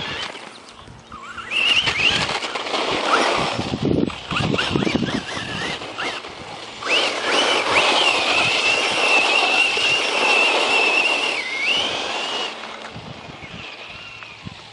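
Brushless electric motor of a 1/10-scale RC truck driving hard: a high whine that rises as it speeds up, is held at speed for several seconds in the middle, then dips, over the rush of tyres on dirt.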